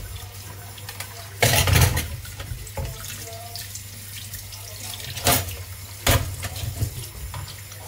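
Kitchen tap running into a stainless steel sink while raw chicken is rinsed by hand under the stream. A few louder bursts of splashing break the steady flow: a long one about a second and a half in, and two short ones near the end.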